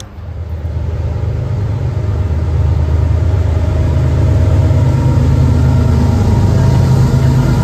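Diesel locomotive engine running loud and close, a steady deep drone that swells over the first couple of seconds and then holds.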